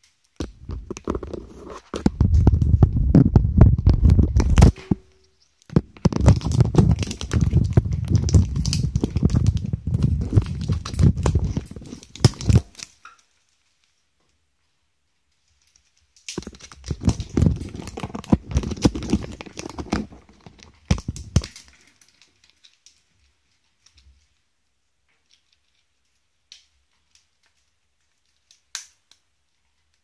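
African grey parrot working at the taped-on phone, its beak and feet tearing and crackling at the tape and the phone's casing right at the microphone, in two long bouts of loud scratching with a pause between. A few faint ticks follow near the end.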